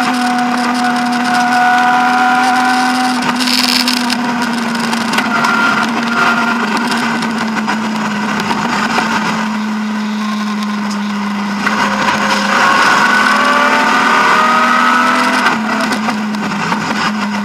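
BMW E36 M3's straight-six engine running hard under load on a rally stage, heard from inside the cabin. Its pitch rises as the car accelerates about twelve seconds in.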